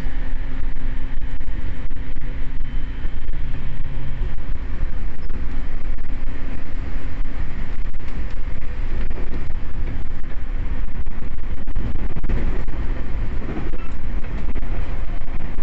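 JR East E231-series electric train running, a steady rumble of wheels on rails. A few steady motor or inverter tones fade out about four seconds in.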